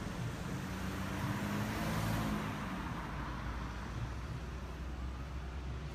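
Street traffic: cars running through a town-centre roundabout, a steady rumble of engines and tyres that swells briefly about two seconds in as a car passes.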